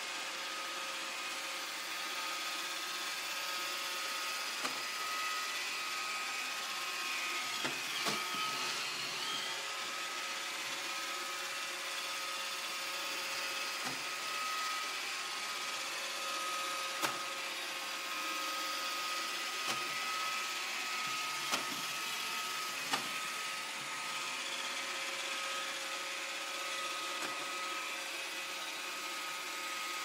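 Roomba robot vacuum running steadily on pool-table felt, a continuous motor-and-brush whir with a steady whine. A few short, sharp clicks are scattered through it.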